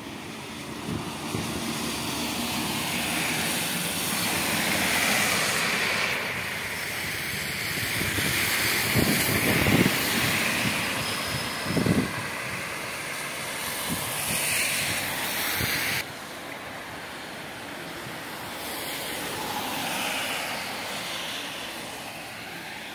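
Cars driving on a rain-soaked road: tyre hiss on the wet asphalt swells and fades several times as vehicles pass. The sound changes abruptly twice, about six and sixteen seconds in.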